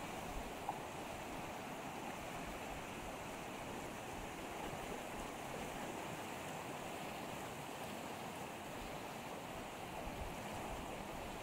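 Steady rushing of flowing water, as of a mountain stream.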